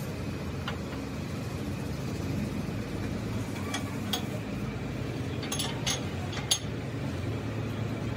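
Metal parts clinking against each other on a lathe, about five sharp clinks in the second half, over a steady low machine hum.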